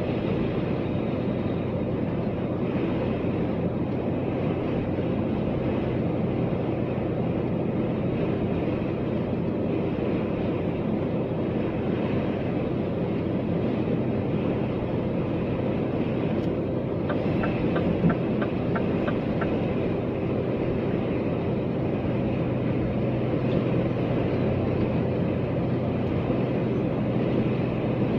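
A vehicle running steadily, with an even engine hum and road noise. A short run of quick, light ticks comes about two-thirds of the way through.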